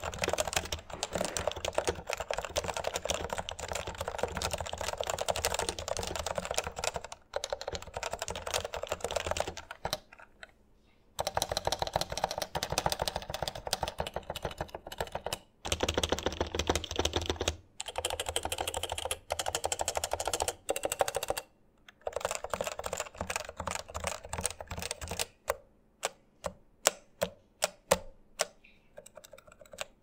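Realforce R2 keyboard with 55 g Topre switches being typed on fast in continuous runs, broken by a few short pauses. Near the end it changes to single keys pressed one at a time, about a dozen separate keystrokes.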